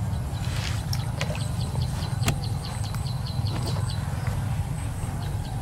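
A small animal chirping in a rapid even series, about three to four short high chirps a second, starting about halfway in, over a steady low rumble and a thin high steady buzz; a couple of sharp clicks come before the chirping.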